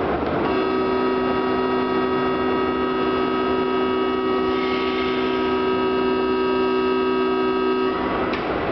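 Station platform departure signal: a steady electronic chord of several tones held for about seven and a half seconds, then cutting off.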